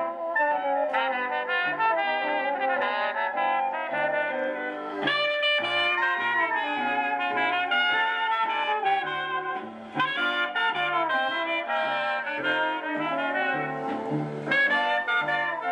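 Brass-led jazz music playing from an LP on a 1958 Dynavox portable stereo record player, heard through the player's own speakers. It runs on a new-old-stock cartridge.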